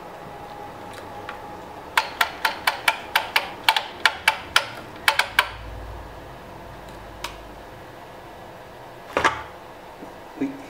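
Power Magic Mag Plus exercise bike's flywheel running with a steady low hum while its load adjuster is clicked quickly through its resistance steps: a run of about fifteen sharp clicks over three and a half seconds. A low rumble follows as the load unit swings in on the flywheel, then a couple of single clunks near the end.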